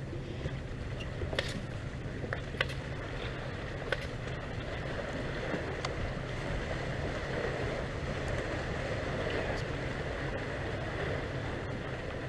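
Open-air boat ambience: water lapping against a small boat's hull and wind on the microphone over a steady low hum, with a few sharp ticks in the first half.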